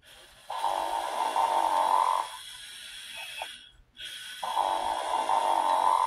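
Sesame Street Sing & Snore Ernie toy (1996) snoring from its electronic voice box: two recorded snores about four seconds apart. Each is a loud snore drawn in, then a quieter breath out with a short squeaky whistle.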